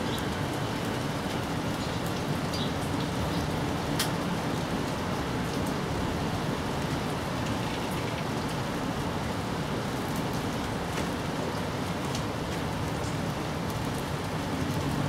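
Steady rain falling, with scattered drops ticking sharply, the clearest about four seconds in.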